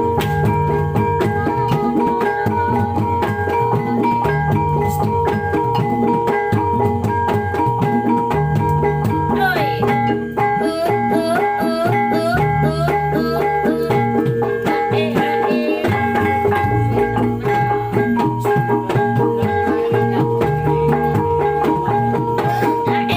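Javanese gamelan-style music for a kuda lumping (horse trance dance) troupe, with ringing metal gong-chimes and drums playing a steady repeating pattern. A wavering, gliding melodic line joins about ten seconds in.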